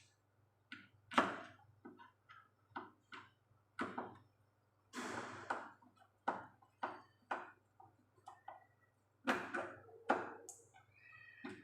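Irregular clicks, taps and knocks of tools and plastic and metal parts being handled as a washing machine's removed parts are refitted and fastened, with one longer rasp about five seconds in.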